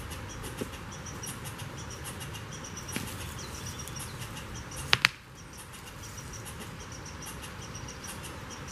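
Outdoor ambience: a steady hiss with short, high chirps repeating throughout, and two sharp clicks close together about five seconds in.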